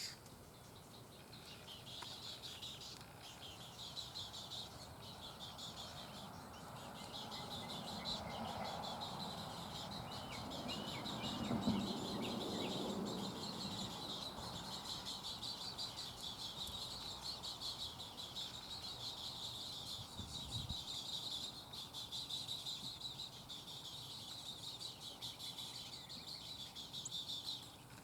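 Little Blue Heron chicks begging, a dense, rapid high-pitched chattering that goes on almost without a break and stops abruptly near the end. A lower, louder scuffling swells around the middle.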